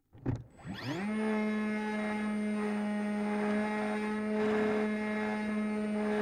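The wing's brushless 2216 electric motor and 9x6 propeller, heard from the onboard camera: a thump at the bungee launch, then the motor spins up with a quickly rising whine and holds a steady, pitched propeller drone as the plane climbs.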